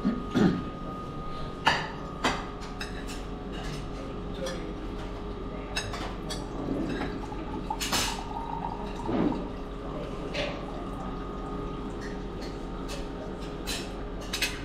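Dishes and cutlery at a breakfast table clinking and tapping several times over a steady hum, with brief murmurs of voices.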